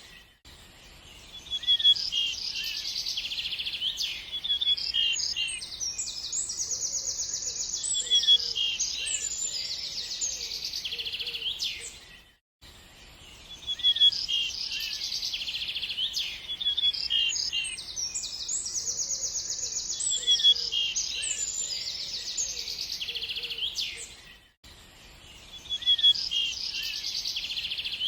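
Several birds singing and chirping with fast trills and short high chirps. The same stretch of song repeats about every twelve seconds, with a brief dropout between repeats.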